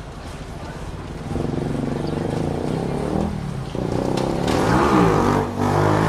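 Close city-street traffic: a motor vehicle's engine getting louder as it comes near, first about a second in and more strongly near the end, over a steady hum of street noise.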